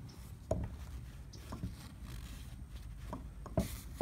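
A few scattered knocks and clinks as steel pistons with connecting rods from a small Yanmar diesel are picked up and handled on a wooden bench, the loudest knock near the end, with a short rustle just after it.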